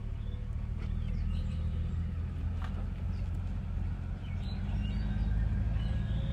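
A 2001 Chevy Silverado pickup driving, heard from inside the cab: a steady low engine and road rumble that grows slightly louder as the truck gathers speed.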